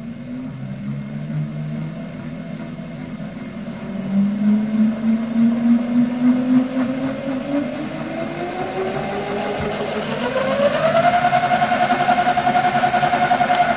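Electric mini moto pit bike's motor spinning the raised rear wheel with no load: a whine that climbs steadily in pitch as the motor speeds up, then holds steady at full speed.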